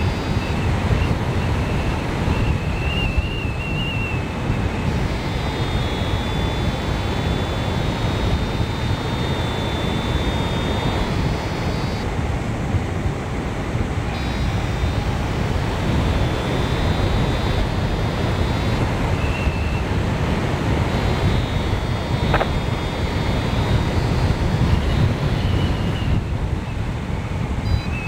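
Steady wind noise buffeting the microphone of a camera carried on a hang glider in flight, with thin high tones coming and going over it.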